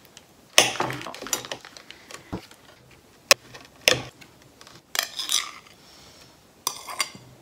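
A table knife clicking and tapping against a ceramic plate as butter is cut into pieces, in a string of separate sharp clinks with a short scrape about five seconds in. Near the end comes a cluster of clinks as the plate is tipped and scraped against a stainless-steel mixing bowl.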